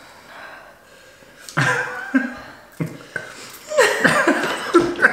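A man and a woman laughing together in repeated bursts, starting about a second and a half in.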